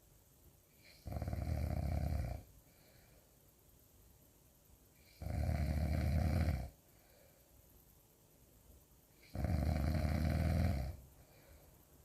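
Loud snoring: three long snores about four seconds apart, each lasting over a second, with quiet breathing between.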